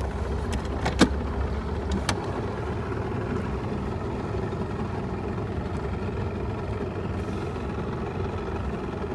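Bass boat's outboard motor idling steadily at low speed. A sharp click about a second in, the loudest moment, and another at about two seconds.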